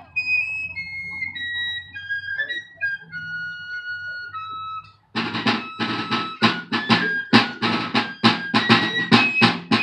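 Fife and drum playing a military march: the fife carries the tune alone at first, and after a brief break about five seconds in, the drums come back in with steady, loud strokes under it.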